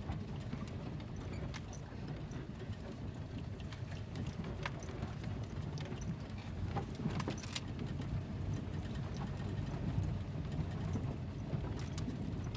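A car driving along, heard from inside the cabin: a steady low engine and road rumble, with scattered light clicks and rattles.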